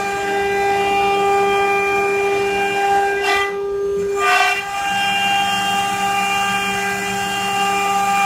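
CNC stone carving machine's spindle motor running with a steady high whine. About three seconds in the upper part of the whine drops out for just over a second, then comes back.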